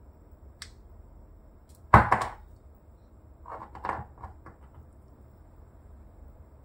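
Small hard plastic figure pieces knocking and clicking as they are handled: one sharp knock about two seconds in, then a quick run of lighter clicks and taps a second and a half later.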